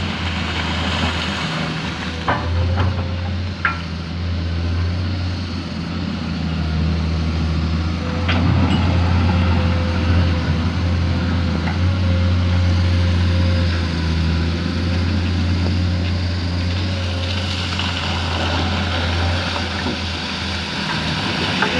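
Komatsu PC210 excavator's six-cylinder diesel engine running steadily with a thin steady whine above its hum, a few short knocks and clanks, and the engine getting louder about eight seconds in.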